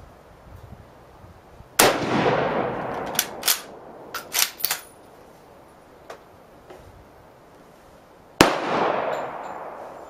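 Two shots from a 1941 Mosin-Nagant bolt-action rifle firing 7.62x54R, about six and a half seconds apart, each ringing on and dying away over a second or so. Between them, a few short metallic clicks as the bolt is worked to eject the spent case and chamber the next round.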